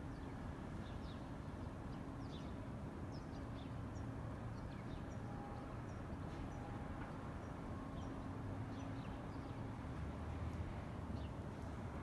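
Small birds chirping sporadically in short, high notes over a steady low background rumble.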